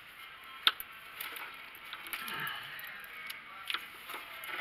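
Handling noise from a gloved hand working among engine-bay wiring: scattered light clicks and rustling, with one sharp click under a second in.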